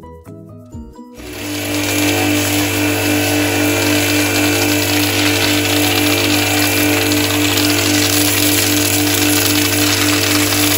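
Electric pressure washer running steadily, its pump giving a pulsing hum under the hiss of the water jet hitting wood. It starts abruptly about a second in, after quiet music.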